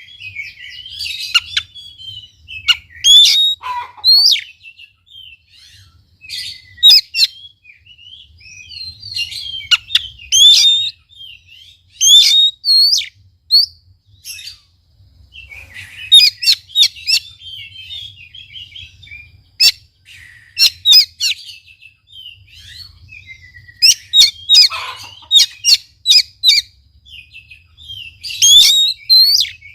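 Oriental magpie-robin singing vigorously: a long, varied song of loud whistles, quick chips and sweeping notes, delivered in bursts with short pauses, over a faint low hum.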